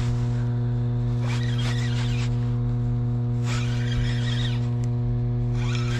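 Steady low electrical hum with evenly spaced overtones, unchanging throughout. Soft bursts of hiss come and go about three times over it.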